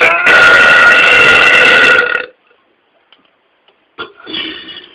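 A man's long, loud burp lasting about two seconds, held at a steady pitch. A shorter, much quieter sound follows about four seconds in.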